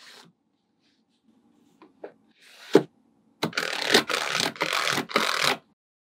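Small magnetic balls clicking sharply together a couple of times, then about two seconds of dense rattling and scraping as a mass of the balls is moved at once.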